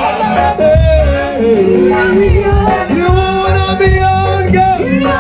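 Worship music with a steady beat and a voice singing long, held notes that glide between pitches.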